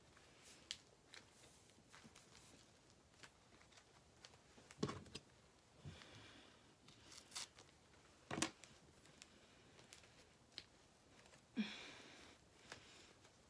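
Faint handling of a cloth snake bag: fingers picking at tape stuck to the fabric, with soft rustles, scattered small clicks and a couple of louder knocks.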